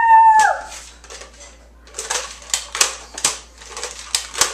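A child's high, held shout ends about half a second in. From about two seconds in comes a quick run of sharp plastic clicks and rattles, from a toy foam-dart blaster being handled and primed.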